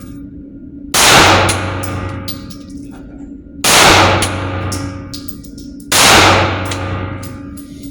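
Polymer 80 Glock-pattern pistol firing three shots about two and a half seconds apart. Each shot is a sharp crack that echoes away over a second or more.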